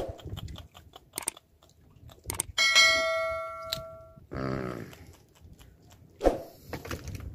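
Small clicks and handling noises of a fish being unhooked from a handline, with one clear metallic clang about two and a half seconds in that rings for over a second, followed by a short low buzz.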